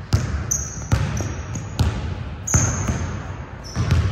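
A basketball bouncing on a gym court, about five bounces roughly a second apart, with short high sneaker squeaks on the floor between them.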